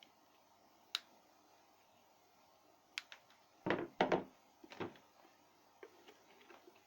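Handling noises from small hard objects: a few sharp clicks, then three louder dull knocks a little past the middle, followed by fainter clicks.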